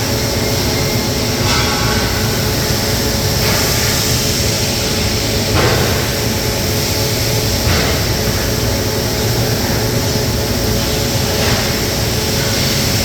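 Steady machinery noise from an automated welding line: a continuous hum and hiss with a few brief changes in texture, and no distinct strikes.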